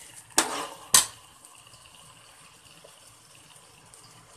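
A metal spoon strikes and scrapes a cooking pot twice, about half a second apart, while stirring grated carrots; then a faint steady sizzle as the carrots cook in ghee on a high flame to dry off their water.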